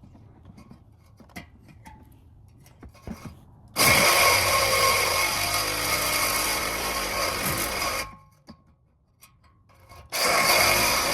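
Reciprocating saw cutting at an exhaust pipe connection: a few light clicks, then the saw runs for about four seconds, stops, and starts cutting again near the end.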